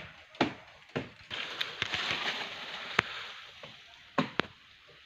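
Chopping strokes into a tree branch high up in a tree: two blows about half a second apart, then a long rustling rush of leaves with one sharp crack in the middle as the cut branch breaks away and falls, then two more quick chops near the end.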